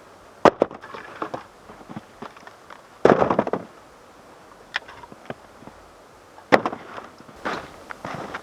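A series of irregular sharp knocks and clicks, with a short, rough, crunching burst about three seconds in.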